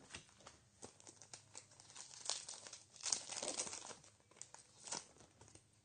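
Crinkling and tearing of a trading-card pack's foil wrapper being handled, with small clicks and crackles, loudest in a couple of longer swells in the middle.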